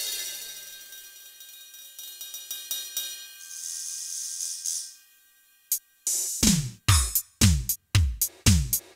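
Roland TD-8 electronic drum module sounds: a fading kit pattern with ticking hi-hat, a short burst of cymbal hiss, a brief pause, then from about six seconds in a steady beat of deep electronic kick drums with a falling pitch, about two a second.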